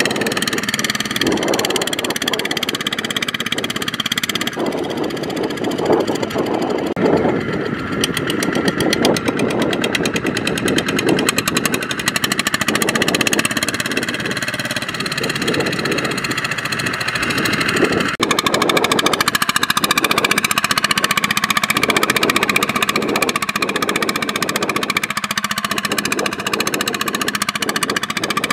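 Single-cylinder diesel engine of a two-wheel walking tractor running steadily under load as it churns through sticky mud, with a rapid knocking beat. The sound changes abruptly about two-thirds of the way through.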